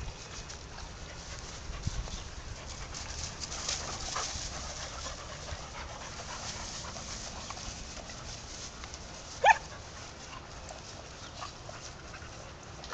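Dogs, including a golden retriever puppy, scuffling as they play-wrestle on grass, with one short, sharp yelp about three-quarters of the way through.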